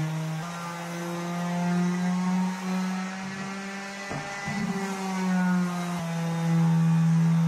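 Electric sheet sander running steadily on a walnut-and-pine cutting board. Its hum rises while it is lifted off the wood and drops again when it is pressed back on. There is a single knock about four seconds in as the board is turned over.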